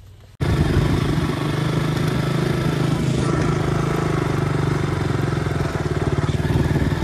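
Motorcycle engine running at a steady, even pitch while riding. The sound cuts in suddenly about half a second in.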